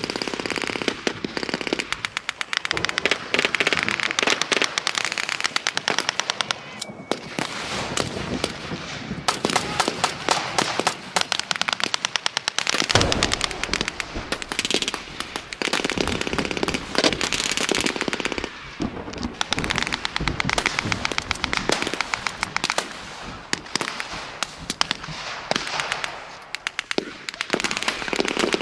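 Blank-firing rifles and machine guns in continuous battle fire: rapid bursts and scattered single shots overlapping, with a low rumble joining about halfway through.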